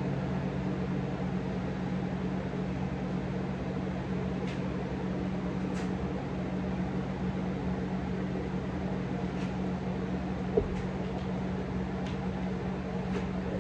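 LG window air conditioner running: a steady hum with low droning tones. One sharp click a little after ten seconds in.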